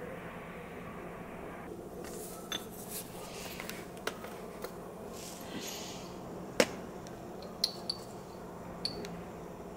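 A small metal spoon and dishes clinking: several light, sharp clinks, the loudest about two-thirds through and a few more near the end as salt is spooned from a small ceramic jar. Soft scraping and rustling earlier on.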